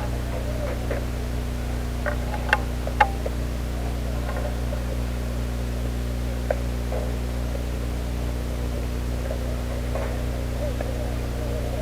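Steady low electrical hum with a hiss over it, broken by a few sharp clicks: two close together a few seconds in and one more about halfway through.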